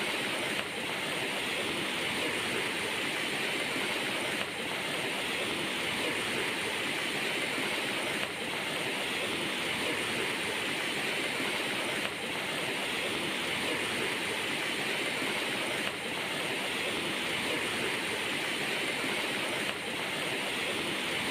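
Steady rushing water, an even hiss-like noise with small dips about every four seconds.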